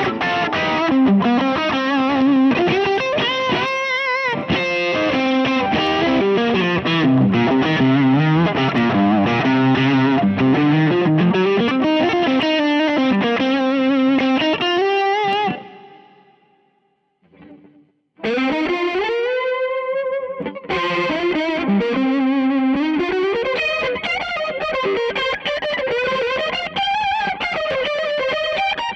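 Electric guitar played through a Fractal Audio FM9 amp-modeler preset, in flowing single-note melodic lines. The playing stops for about two seconds just past halfway, then starts again.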